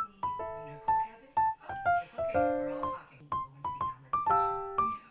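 Background piano music: a light tune of single struck notes, about two or three a second, each ringing and fading.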